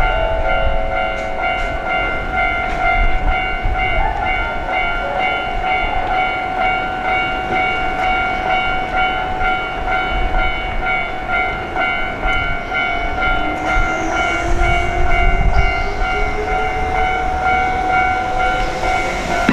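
Shin-Keisei 8800-series electric train with a steady whine of several high tones over a low rumble. From about thirteen seconds in, a second whine rises steadily in pitch as the traction motors accelerate the train.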